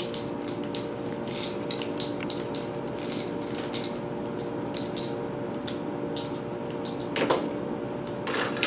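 Light metallic clicks and taps of aluminium TV-antenna elements being handled and screwed onto the boom, with a couple of louder knocks near the end, over a steady hum.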